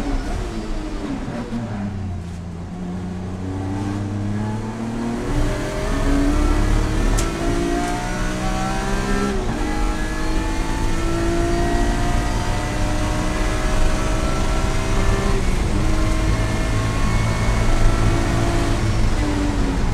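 A BMW race car's engine heard from inside the cabin at high revs on track. The pitch falls at first as the car slows, then climbs steadily under full throttle. About nine seconds in it drops sharply at an upshift and climbs again, before falling off near the end.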